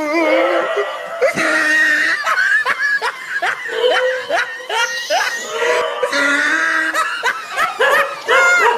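Laughter: a long run of quick, pitched laughing notes, one after another.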